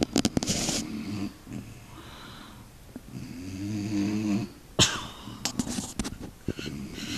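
A pet snoring in a repeating rhythm: three drawn-out snores with a low, rattling pitched tone, the longest from a little past three seconds in. Short sharp snorts fall between them.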